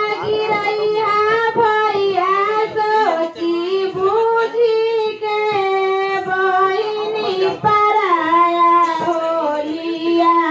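A high-pitched voice singing a slow melody, with long held notes that slide from one pitch to the next.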